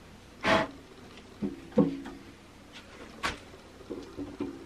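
Metal engine parts knocking and clinking as they are handled and fitted on a small-block Ford V8 during cylinder-head assembly: a handful of separate sharp knocks, the loudest about half a second in, with lighter taps near the end.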